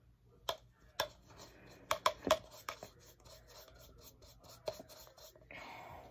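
Paintbrush scratching and dabbing paint onto the inside wall of a clear plastic cup, with a series of sharp plastic clicks and taps, loudest about two seconds in, and a short rustle near the end.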